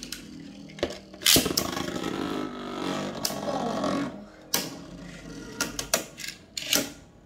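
A Beyblade spinning top launched with a cord launcher into a plastic stadium where another top is already spinning: a sharp snap about a second in, then about three seconds of dense whirring. After that comes a run of separate sharp clacks as the two spinning tops strike each other and the stadium wall.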